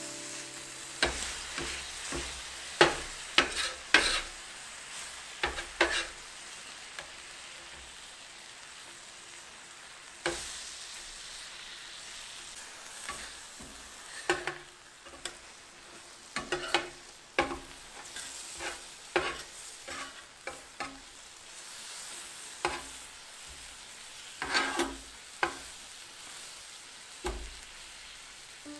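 Meat skewers and liver sizzling in tare on a thick steel griddle plate, a steady high hiss. Metal spatulas scrape and knock against the plate again and again, giving sharp clicks, some in quick clusters.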